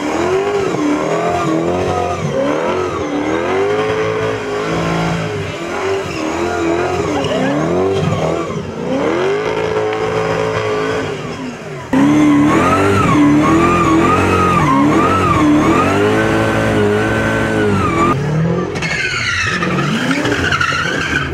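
Toyota GT86 drift car's engine revving up and down over and over in quick rising and falling sweeps as the car slides sideways, with tyres skidding on the wet surface. About twelve seconds in the sound suddenly gets louder, and near the end the revs climb higher.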